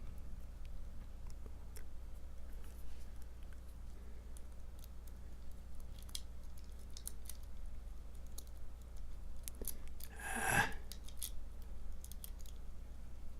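Faint, scattered metallic clicks and scrapes of a lock pick and tension wrench working the pins of a challenge padlock, with one louder brief rustling scrape about ten and a half seconds in, over a steady low hum.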